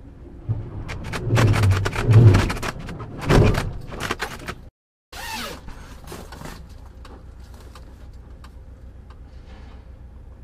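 A run of loud thumps, bangs and scraping as a car-hauler trailer strikes and scrapes along the front of a parked semi truck, heaviest in the first four seconds. The sound drops out for a moment, there is one more scrape, and then a steady low hum remains.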